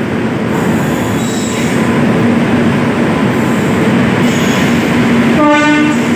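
Passenger train running alongside the platform, with a steady rumble of coaches and wheels. About five and a half seconds in, a short horn blast sounds.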